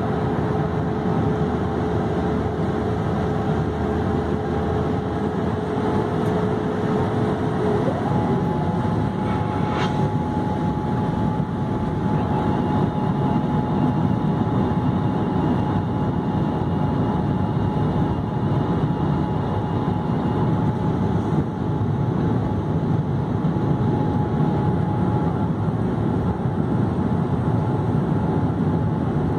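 Steady cabin noise of a Boeing 787-8 in flight: engine and airflow rush heard from a seat over the wing. A thin steady hum runs through it and jumps up to a higher pitch about a quarter of the way in, with a single faint click shortly after.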